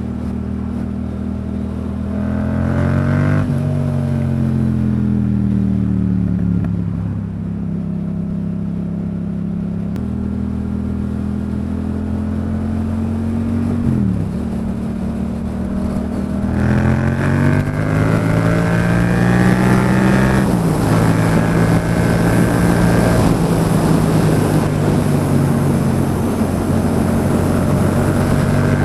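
Yamaha MT-07 motorcycle's parallel-twin engine running on the road, the pitch climbing under acceleration and dropping sharply at each gear change, with a longer hard pull about halfway through before settling to a steady cruise. Wind rushes over the microphone as the speed builds.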